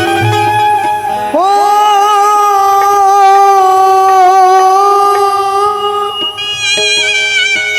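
Bhimgeet stage music: a melody swoops up about one and a half seconds in into a long held, wavering note, with light percussion coming in near the end.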